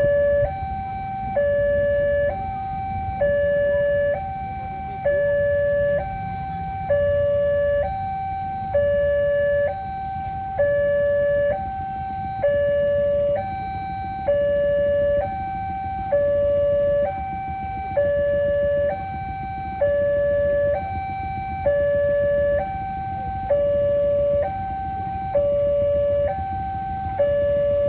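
Electronic two-tone warning siren of a railway level-crossing barrier, switching between a short higher tone and a longer lower tone about once every two seconds, over a steady low rumble. The siren signals that a train is approaching and the crossing is closed.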